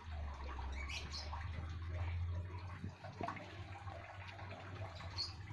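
Quiet background: a steady low hum with a few faint, short bird chirps and scattered small ticks.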